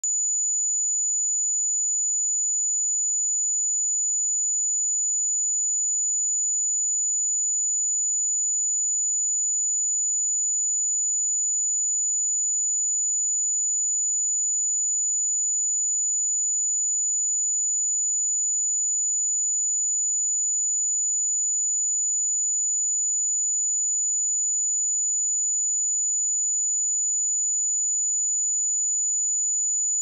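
Pure sine-wave test tone at 6947 Hz, a single steady high-pitched whistle held unchanged at constant level.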